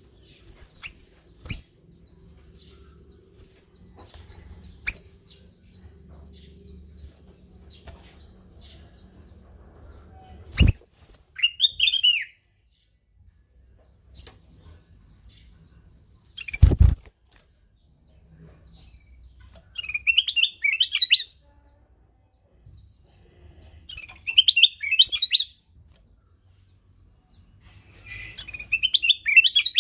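Kutilang emas, a bulbul, singing four short phrases of quick warbled notes, each about a second long, that come more often towards the end. A steady high-pitched whine runs underneath, and two sharp knocks sound near the middle.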